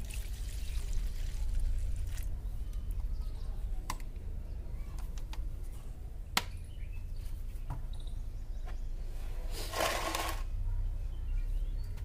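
Turpentine oil being poured out of a bottle, with a few sharp clicks of the bottle and cap being handled and a brief louder rush of liquid near the end.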